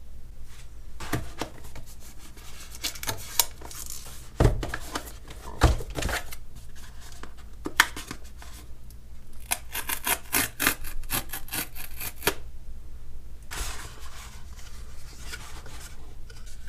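A small cardboard retail box being handled and opened by hand, its card and wrapping rubbing and scraping in uneven strokes, with two thumps about four and a half and six seconds in.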